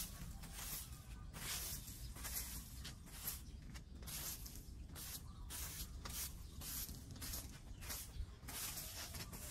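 Plastic-bristled broom sweeping dirt and dry leaves across concrete paving, a swishing stroke about twice a second.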